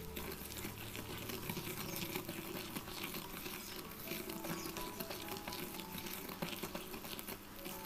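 Wire whisk stirring a thick butter and sugar cookie mixture in a glass bowl: fast, continuous scratchy scraping with the wires clicking against the glass, over soft background music.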